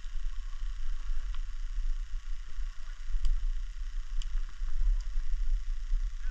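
Low, uneven rumble on the microphone over a steady hiss, with a few faint light clicks.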